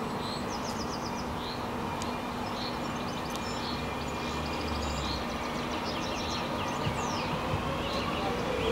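Steam locomotive 46115 Scots Guardsman, heard at a distance as a steady hiss and rumble, with small birds chirping throughout. A rising tone begins near the end.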